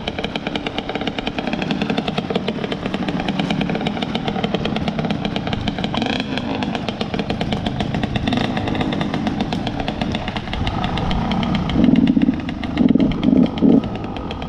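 Two-stroke dirt bike engine running at low revs, with several short throttle blips near the end.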